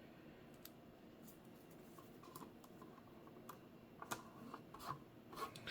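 Faint, scattered light clicks and taps of hands handling parts, with a few sharper clicks in the second half, as new tape is pressed onto an LCD monitor panel.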